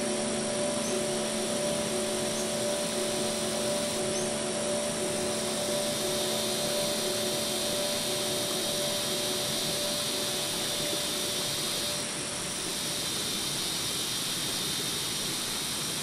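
A steady drone with several held low tones, like a distant motor, under a shrill, continuous insect drone that comes in about five seconds in. A few faint short high chirps sound in the first four seconds.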